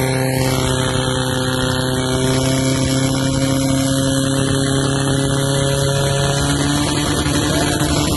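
Portable fire pump engine running at high revs under load, pumping water through the laid hoses. The engine note is steady, with a slight step up in pitch about six and a half seconds in.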